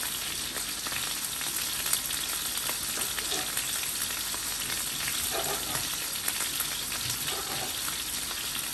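Chicken frying in hot oil in a pan: a steady sizzle with many small crackles and pops.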